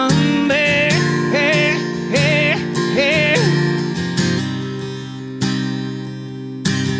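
Music: a man's voice sings four long, wavering, wordless notes over strummed acoustic guitar. For the last three seconds or so the acoustic guitar strums on alone.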